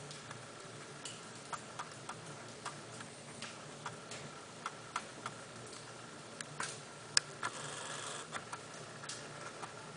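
Irregular light taps and clicks of bricklaying work, likely a trowel tapping bricks and tools knocking on brick, about one or two a second, with a short scrape a little before the eight-second mark.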